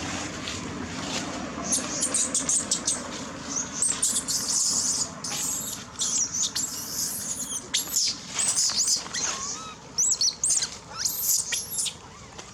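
Baby monkey crying with rapid, repeated high-pitched squeals and squeaks, begging its mother to nurse.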